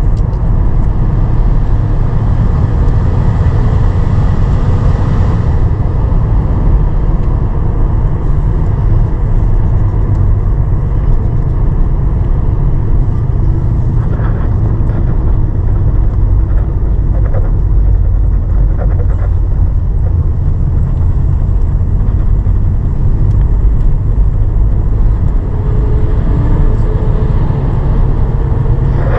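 A car driving along the road, heard from inside the cabin with the windows closed: a steady low rumble of engine and road noise.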